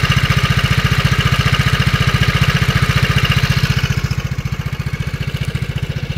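SYM Fighter scooter's single-cylinder four-stroke engine idling with rapid, even pulses and a 'ke ke ke' rattle from the cooling-fan area, an abnormal noise that shows at idle and goes away when the throttle is opened. The sound gets a little quieter and duller about four seconds in.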